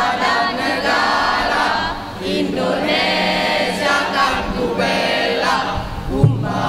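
A large mixed choir of young men and women singing together in sustained phrases, with a short pause about two seconds in. A brief low thump sounds near the end.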